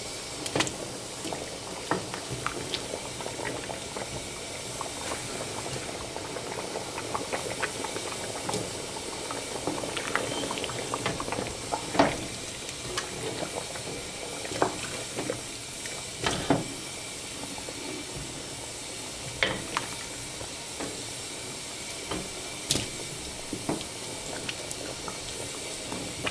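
Pot of thick Jamaican red peas soup bubbling at a steady boil, with a few sharper pops and clicks scattered through it.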